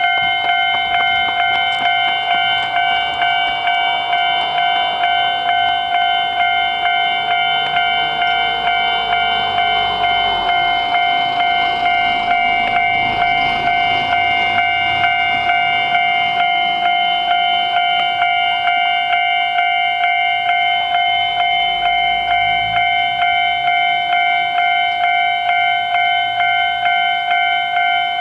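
Japanese railway level-crossing warning bell ringing: an electronic alarm of several steady tones pulsing in an even, quick rhythm.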